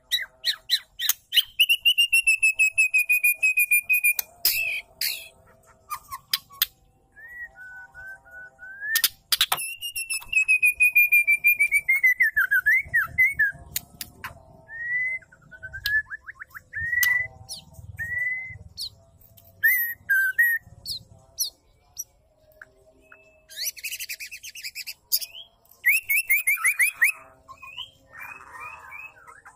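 White-rumped shama calling, presented as a female: rapid trains of ticking notes over a long falling whistle, twice, between short whistled notes and bursts of harsh chatter.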